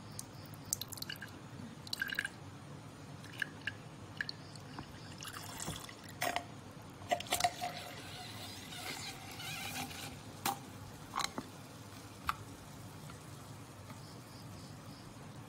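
Strawberry ice tea squeezed out of a paper drink carton through its bent straw into a glass: scattered drips and splashes with a longer trickling, hissing run about halfway through, and the carton squished and crackling under the hands.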